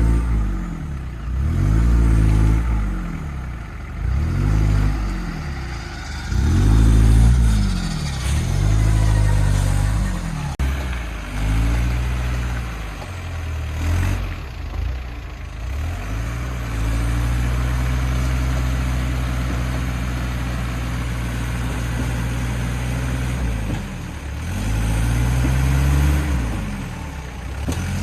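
A 4x4's engine revving hard again and again, its pitch rising and falling about every two seconds, then held at steady high revs for several seconds before one more rev and drop near the end.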